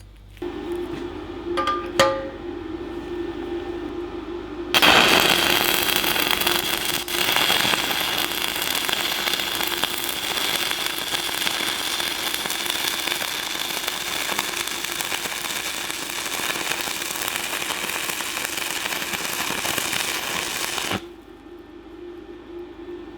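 Stick (MMA) welding arc from a Decapower Ecoarc 160 inverter welder: a brief scratch and spark about two seconds in, then the arc burning with a steady crackle and hiss for about sixteen seconds before it cuts off suddenly. A steady low hum runs underneath.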